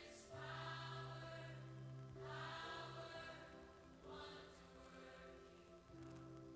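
Soft music with a choir singing long held chords that swell and fade about every two seconds.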